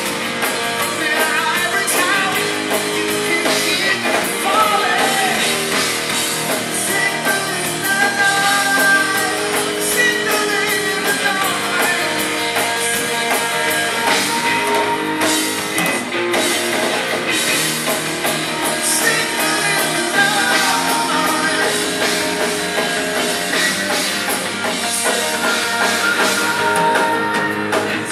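Live rock band playing: electric guitar and drum kit with a sung vocal, heard from the audience in a music hall.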